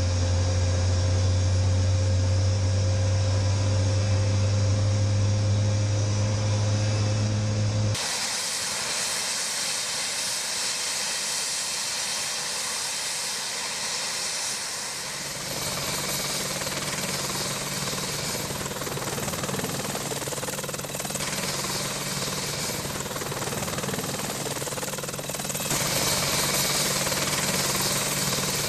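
AH-64 Apache helicopter noise. For the first eight seconds there is a steady low hum with steady tones, then an abrupt cut to a broad rushing noise. Near the middle a low, even rotor beat joins it.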